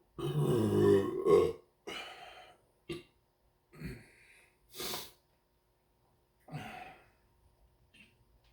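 A person's long, loud burp lasting about a second and a half, then a string of shorter burps and breaths, gas brought up after chugging two liters of soda.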